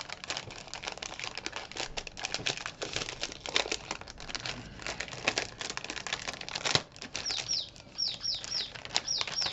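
Clear plastic bag crinkling and crackling as hands handle it and open it. In the last couple of seconds there is a run of quick, high chirps that fall in pitch.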